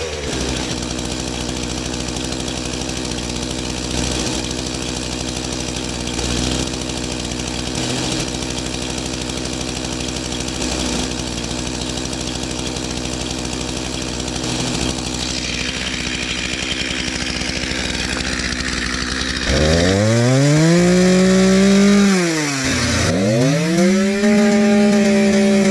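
Two-stroke petrol chainsaw running at a steady low idle. About 19 s in it is revved up to high speed, drops back briefly about 22 s in, then is revved again and held at full speed.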